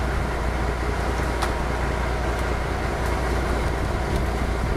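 Fishing boat's engine running steadily at sea, a constant low drone with wind and water noise over it.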